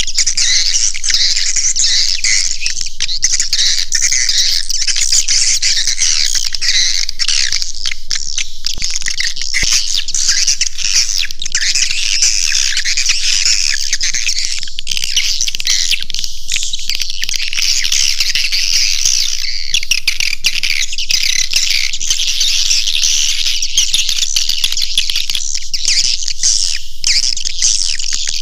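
Swiftlet caller track: a dense, unbroken chorus of high twittering swiftlet chirps at a steady level, played to lure swiftlets into a swiftlet house.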